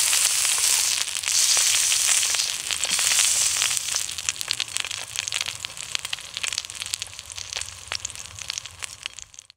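A wagyu steak sizzling in hot fat in an iron pan. A dense hiss thins after about four seconds into scattered pops and spits that fade, then cuts off abruptly near the end.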